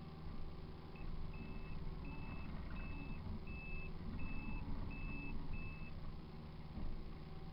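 Kubota KX057 mini excavator's diesel engine running steadily under working load, heard from inside the cab. A high electronic warning beeper sounds about eight evenly spaced beeps, roughly 0.7 s apart, from about one second in until about six seconds in.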